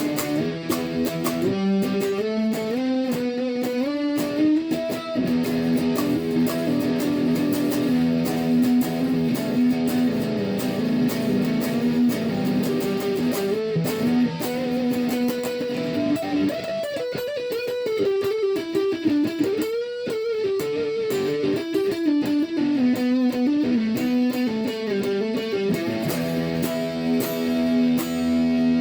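Washburn electric guitar played with drive through both pickups: a melodic line moving up and down over a held low note.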